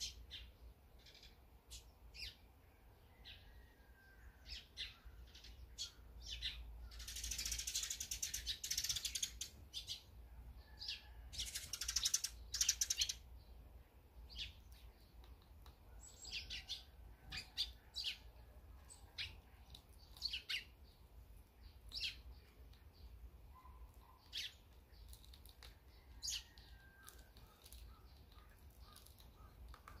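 Eurasian tree sparrows chirping at a seed feeder, in many short, high chirps. Two louder bursts of rapid rattling, each a second or two long, come in the first half.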